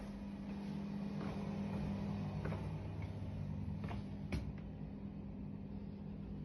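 A steady low hum, with a few soft footfalls and creaks from someone walking through the room, the sharpest tap about four seconds in.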